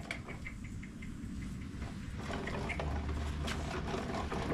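Light clicks, taps and scraping from hands working the jack plate's metal hardware. The sounds grow busier after about two seconds.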